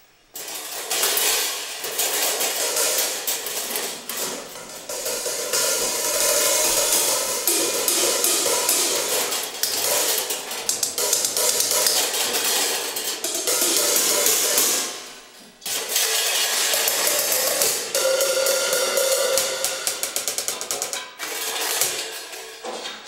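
Worn, chipped crash and ride cymbals hung on a wall, struck quickly and repeatedly with drumsticks: a dense, shimmering wash of metallic hits that breaks off briefly about 15 seconds in and then starts again.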